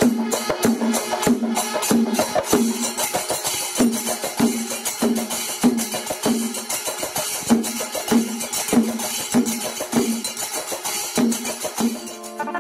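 Percussion music with a steady beat: a ringing drum stroke about twice a second over fast, light tapping.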